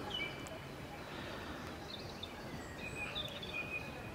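Small birds chirping in short, repeated high calls, a few right at the start and again about three seconds in, over a steady outdoor background hiss.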